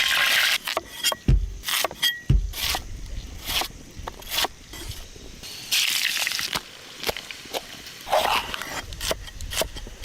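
Cooking pots, utensils and ingredients being handled: a run of sharp clicks, knocks and scrapes, with two heavy thumps about one and two seconds in. A steady hiss stops about half a second in, and a short hiss comes back near the middle.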